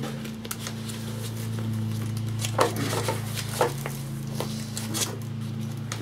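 Handling noise of a retaining strap being fed through its loop around a fridge's insulation blanket: scattered rustles and a few short clicks and scrapes, over a steady low hum.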